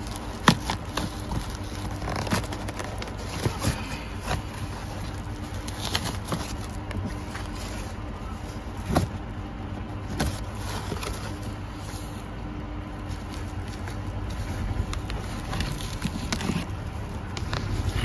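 Cardboard box and its plastic wrapping and tape being pulled open and handled: irregular crackling, rustling and scraping, with a sharp crack or snap now and then.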